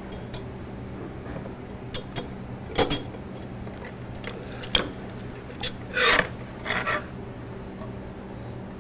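Steel linkage arms of a DeWalt DW788 scroll saw and hand tools being handled on a workbench: scattered metal clinks and knocks, with two longer scrapes about six and seven seconds in, as the linkages are fitted back onto the saw's rocker arm.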